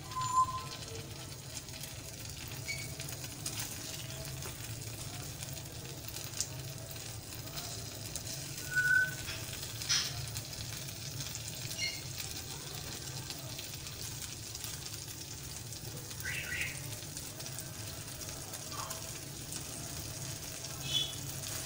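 Egg-and-milk-soaked bread slices (French toast) sizzling steadily in oil on a flat pan, with a silicone spatula now and then clicking and scraping against it. A few short high chirps stand out above the sizzle.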